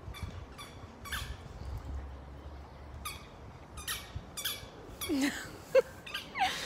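Labrador retriever puppies giving short, high-pitched yips and squeals as they play-fight, coming closer together near the end.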